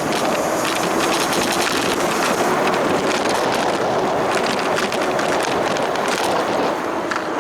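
Steady riding noise from a Heybike Ranger S electric bike under way: wind rushing over the microphone and tyres on the road, with a faint steady hum underneath.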